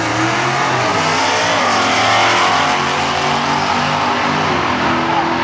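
Two drag-racing cars accelerating hard down the strip after launching from the line. Their engine notes climb and drop back repeatedly as they shift gears.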